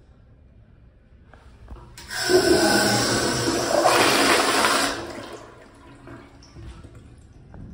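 Commercial toilet with a chrome flushometer valve flushing. A loud rush of water starts suddenly about two seconds in, holds for about three seconds, then dies away.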